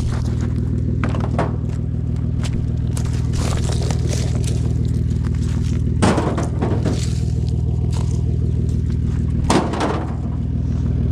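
Vehicle engine running steadily at low speed. Two loud clattering knocks cut through it, about six seconds in and again about nine and a half seconds in.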